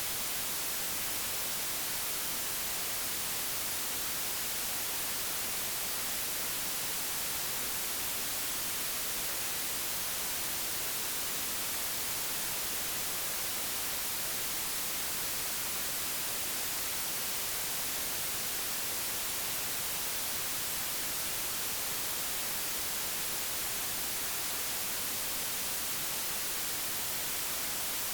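Digitally generated white noise: a steady, even hiss with no changes.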